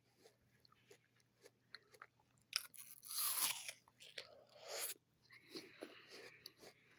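A person biting into and chewing a raw apple. There are small crisp clicks, then a loud crunching bite about two and a half seconds in and a second crunch just before five seconds, followed by quieter chewing.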